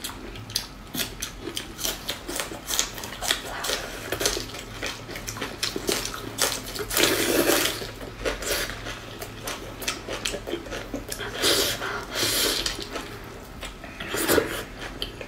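Close-miked eating sounds: wet chewing and lip-smacking clicks that keep up without pause, with louder wet sucking noises as meat is pulled off the bone, about seven seconds in, around eleven to twelve seconds, and near the end.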